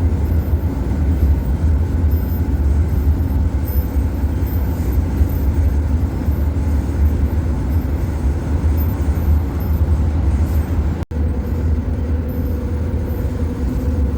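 Steady road and engine rumble inside a moving vehicle's cabin at highway speed, with a brief dropout about eleven seconds in.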